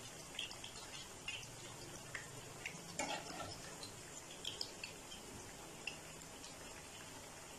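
Beef kababs shallow-frying in oil in a frying pan: a faint steady sizzle with scattered small pops, and a steel slotted spatula tapping and scraping the pan as the kababs are turned, with a sharper knock about three seconds in.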